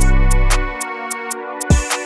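Background music with a steady beat of synth chords and regular hi-hat ticks. The bass drops out just under a second in, and a single drum hit lands near the end.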